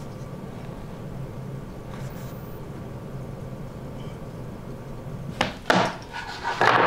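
A steady low hum, then near the end a quick run of loud wooden knocks and scrapes as wooden strips are set down and pushed against a plywood panel on the workbench.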